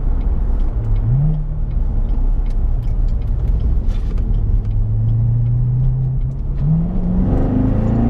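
2014 Chevrolet Corvette Stingray's V8 heard from inside the cabin while driving, over steady road noise. The engine note climbs in pitch about a second in, holds steady, then climbs again near the end, growing louder and fuller as the car accelerates.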